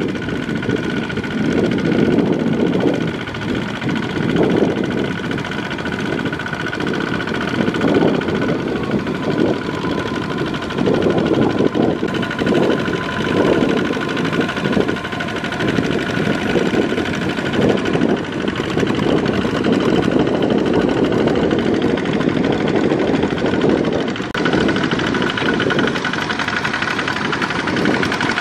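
Single-cylinder diesel engine of a two-wheel walking tractor running steadily under load as its cage wheels churn through the mud and water of a flooded rice paddy.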